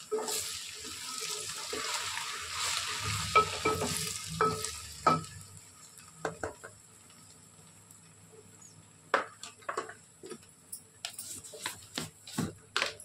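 Masala frying and sizzling in oil in a pot just after turmeric is added, with a spoon stirring and knocking against the pot. The sizzle dies down after about five seconds, leaving scattered knocks and scrapes of the spoon.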